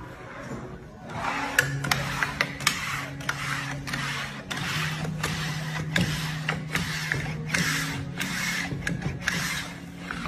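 Handheld Buschmann standing-seam bender worked along the edge of a sheet-metal panel, its rollers folding up the seam. It makes a repeated mechanical rasp with sharp clicks, about two strokes a second, starting about a second in. Background music with a steady low tone runs underneath.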